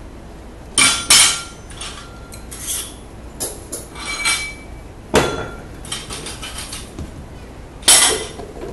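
Metal barbell spring clip and small iron change plates clanking and clinking as weight is stripped off the end of a barbell and set on the floor. Sharp clanks come about a second in, midway and near the end, with lighter clinks between them.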